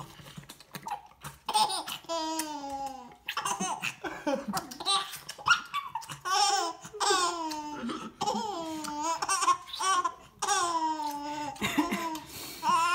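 A six-and-a-half-month-old baby laughing in a long run of high-pitched bursts, each sliding down in pitch, about once a second.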